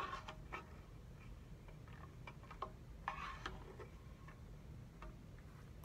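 Faint, scattered light clicks and taps of an eating utensil against a dish, with a short scraping noise about three seconds in.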